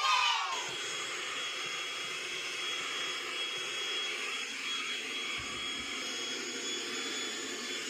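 A motor running steadily with a rushing-air noise and a thin high whine, cutting in suddenly at the start.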